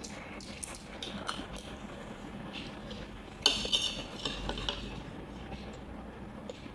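Cutlery clinking and scraping against a plate while a meal is eaten: scattered short taps, with one louder, longer scrape about three and a half seconds in.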